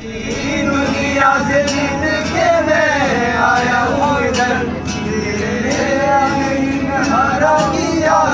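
A group of men singing together loudly, with several voices at once.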